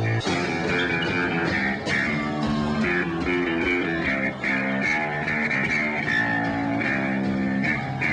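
Rock band playing live: electric guitar and bass guitar in a steady run of changing notes.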